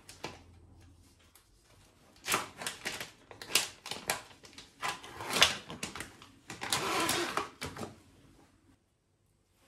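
An irregular run of sharp clicks and knocks, like things being handled and set down, with a short rustling scrape about two-thirds of the way through.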